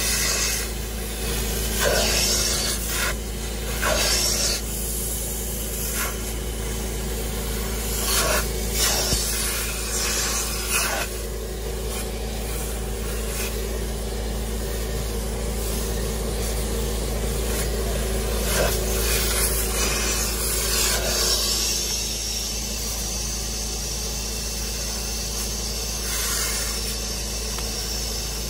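Carpet extractor's vacuum motor running steadily while its upholstery nozzle is drawn across a cloth car seat, with a rasping suction stroke each time the nozzle passes over the fabric, several in the first eleven seconds. From about two-thirds of the way through the strokes stop and a steadier hiss takes over.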